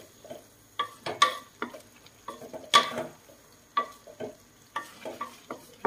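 Spatula scraping and knocking against a metal wok as bean sprouts and minced pork are stir-fried, an irregular clatter of strokes about twice a second over a light sizzle of frying.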